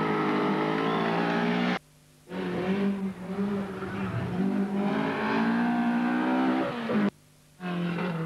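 Race car engine revving hard on a hillclimb, its pitch rising and falling with throttle and gear changes. The sound cuts out twice for about half a second.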